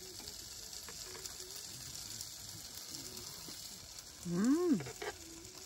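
Pieces of jokbal (pig's trotters) sizzling in a pan over a portable gas stove, a steady hiss. About four seconds in, a person hums a short 'mmm' that rises and then falls in pitch.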